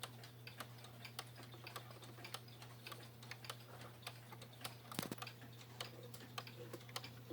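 Chinese 15-day clock movement of a schoolhouse regulator wall clock ticking faintly, with one louder click about five seconds in as the hand is turned toward the strike: the warning drop of the striking train.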